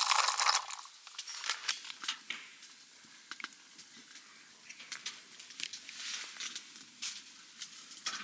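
Noodles dropped by hand into a stainless steel pot of boiling water, a loud rustling burst, followed by scattered clicks and scrapes as they are stirred in the pot with a utensil.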